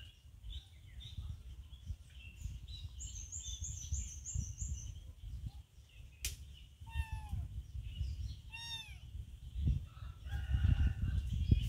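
Birds calling in the background: a quick high trill, then two short falling calls, over a steady low rumble, with a sharp click about six seconds in.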